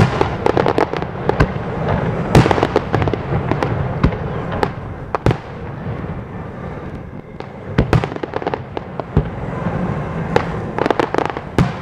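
Aerial fireworks shells bursting in a dense run of sharp bangs and crackles. The bursts thin out around the middle and come thick again near the end.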